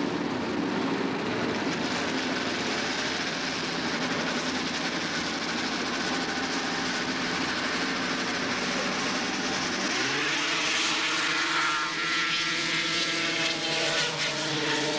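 Two-stroke racing snowmobile engines running at high revs at a grass drag race. About ten seconds in, one engine's pitch climbs sharply and then holds at full throttle.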